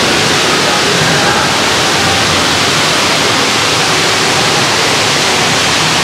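Tukad Cepung waterfall, a loud, steady rush of falling water.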